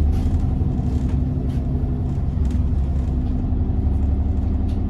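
Diesel engine of a service bus running under way, heard from inside the bus: a steady low drone with a few faint rattles.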